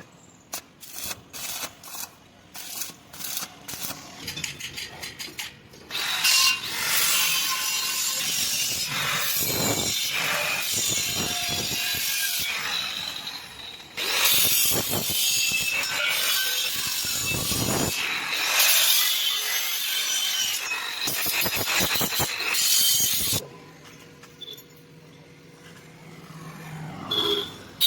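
Metalwork on thin square steel tube: a string of sharp taps and clicks for several seconds, then a long, loud, harsh rasping noise that dips briefly about halfway and stops suddenly near the end.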